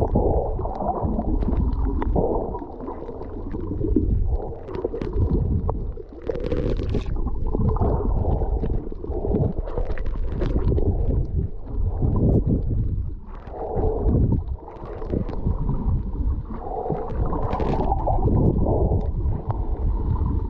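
Water heard underwater while snorkeling: a muffled, churning gurgle with a heavy low rumble that swells and eases every few seconds, with a few brief brighter splashes or bubble bursts.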